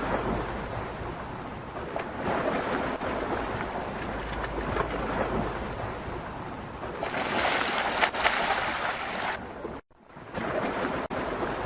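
Rushing river water, a steady hiss with wind buffeting the microphone. The sound cuts out suddenly for a moment about ten seconds in, then the water noise returns.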